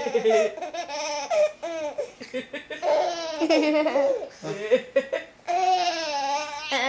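A baby laughing and squealing in a run of high-pitched bursts, with short pauses between them.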